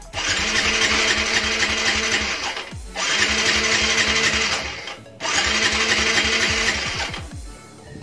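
Suzuki Smash 115's electric starter cranking the single-cylinder engine in three bursts of about two seconds each, each one winding down without the engine firing. The newly installed kill switch is off, cutting power to the ignition coil.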